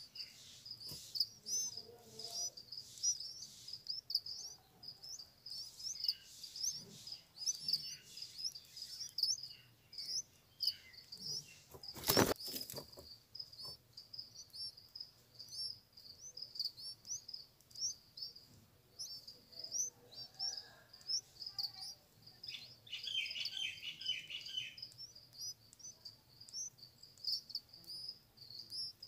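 Red-vented bulbul nestlings begging at the nest: a steady stream of short, high-pitched cheeps, several a second. A sharp knock about 12 seconds in is the loudest sound, and a brief burst of lower, rapid notes comes about three quarters of the way through.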